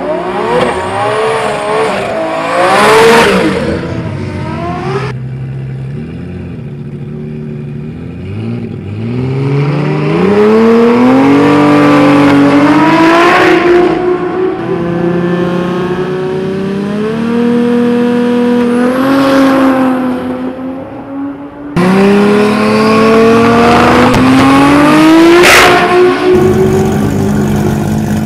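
Turbocharged Toyota 1JZ straight-six drag cars accelerating hard down the quarter mile, their engine notes climbing in pitch and stepping through gear changes over several runs that start and stop abruptly. There is a sharp crack near the end.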